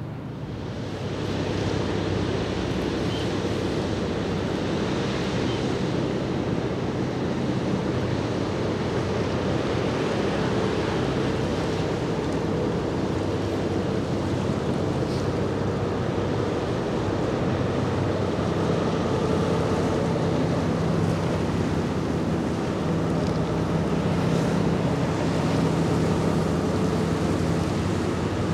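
Wind buffeting the microphone over open water, with the wash of waves and a boat's wake and a steady low engine hum from a passing vessel. The sound swells about a second in and then holds.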